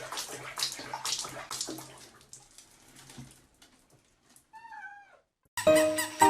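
Water splashing and sloshing with a low steady hum, as in a bath or sink, fading out after about three seconds. Then a cat gives one short meow that falls in pitch at the end.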